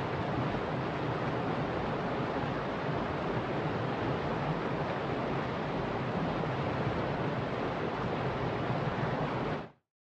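Shallow mountain river rushing over rocks and small rapids: a steady, even wash of flowing water that cuts off suddenly near the end.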